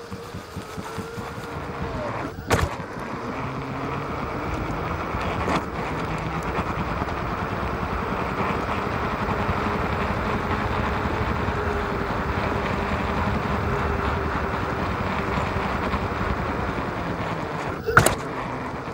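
Onewheel GT in motion, heard from a microphone inside its rail: steady rolling noise from the tyre over dry grass and pavement, with a faint hub-motor whine that drifts slightly in pitch. Sharp knocks come about two and a half seconds in and again near the end.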